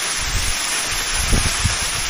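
Steady rushing of a 72-metre, three-tiered waterfall, with a few short low thumps, two of them close together past the middle.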